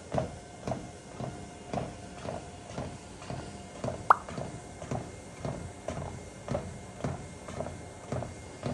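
Footsteps on a running treadmill belt at a steady walking pace, about two steps a second, over the treadmill's faint steady motor hum. One sharp, short high squeak about four seconds in.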